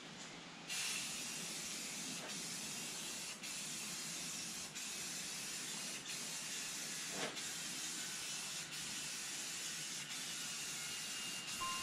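Rust-Oleum 2X aerosol spray paint can spraying: a steady hiss that starts about a second in, with short breaks and clicks as the nozzle is let off between passes.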